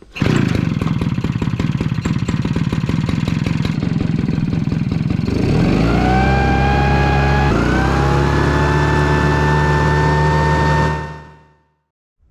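Maruyama MDJ60G-26 backpack power duster's small two-stroke engine running at low speed with rapid firing, then throttled up about five seconds in to a steady high-speed run with the blower fan's whine. The speed dips briefly and rises again, then the sound fades out near the end.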